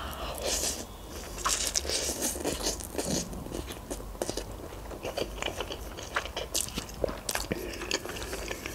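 A person eating instant noodles: slurping noodles off a fork and chewing, with many small wet mouth clicks.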